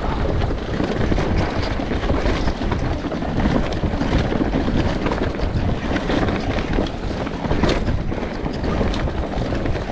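Enduro motorcycle riding off-road, its engine noise mixed with heavy wind buffeting on the on-board microphone.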